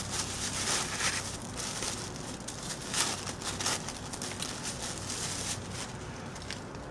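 Tissue paper crinkling and rustling as a small wrapped item is unwrapped by hand, in irregular crackles with a louder one about three seconds in, over a faint steady low hum.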